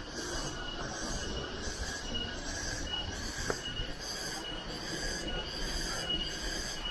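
Cicadas buzzing in a pulsing chorus, about two pulses a second, over a low rushing noise.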